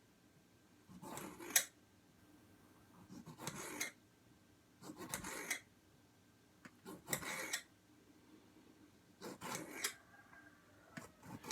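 Kitchen knife slicing through tomatoes on a cutting board: five slow strokes about two seconds apart, some ending in a light tap of the blade on the board.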